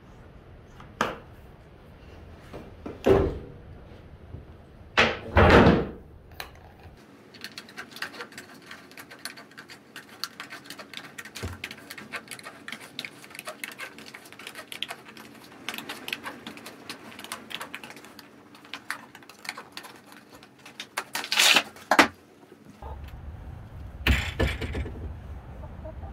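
Several loud knocks and thuds, with a long stretch of rapid light clicking and tapping in between.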